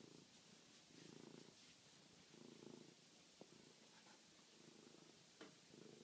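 Domestic cat purring faintly, the purr swelling in pulses about every one and a half seconds. Two small clicks come through, one midway and one near the end.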